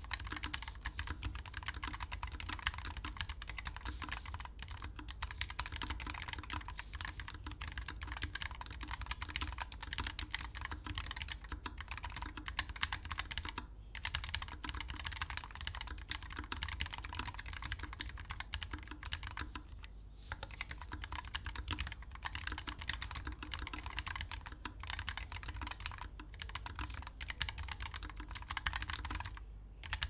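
Fast, continuous typing on a Keychron S1 low-profile mechanical keyboard with Gateron Low Profile Red linear switches and LSA double-shot PBT low-profile keycaps: a dense clatter of keystrokes, with brief lulls about 14 and 20 seconds in and again near the end.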